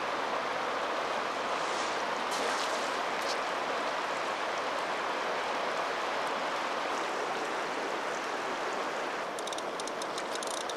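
Fast river water rushing steadily. About nine seconds in, a fly reel's click drag starts ratcheting in short bursts as a hooked Atlantic salmon takes line in small pulls.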